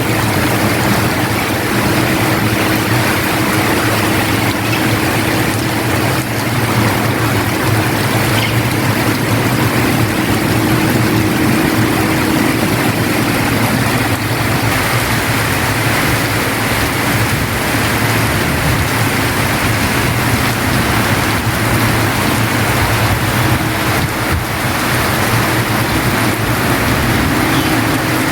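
Steady rain falling hard, an even rushing hiss, with a low steady hum underneath that drops away about halfway through and comes back near the end.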